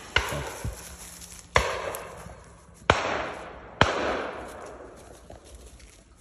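Four shotgun shots at uneven intervals, each a sharp crack followed by a long echoing tail that fades away, typical of shooting at driven pheasant in woodland.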